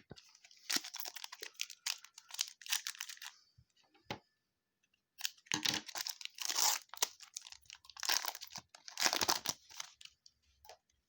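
A trading-card pack wrapper being torn open and crinkled by hand: three spells of crackling and tearing with short pauses between them.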